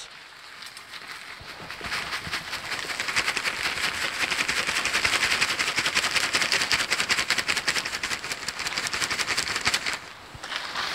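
Fine hickory wood chips poured from a bag into a cast iron skillet: a dense, rapid pattering rattle that builds over the first two seconds, holds steady and stops about ten seconds in.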